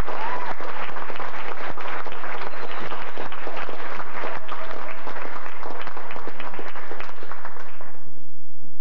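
Audience applauding, a dense patter of many hands clapping that dies away about eight seconds in.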